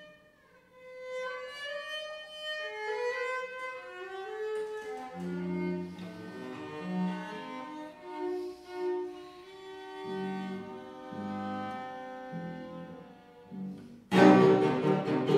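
Chamber music from a trio of gut-strung violin, cello and fortepiano on period instruments, playing a soft passage whose notes climb step by step over low held notes. Near the end the trio breaks into a sudden loud forte.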